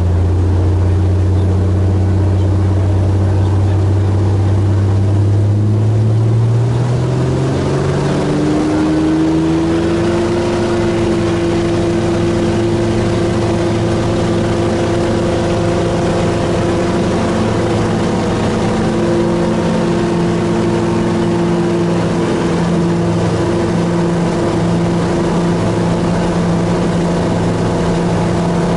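Helio Courier's geared six-cylinder Lycoming GO-480 engine and propeller heard from inside the cockpit. The pitch rises over a few seconds as power comes up, about a quarter of the way in, then holds steady at the higher setting.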